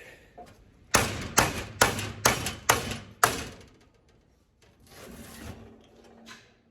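Six hammer blows on steel, about two a second, bending a piece of steel channel around a round pipe to curve it.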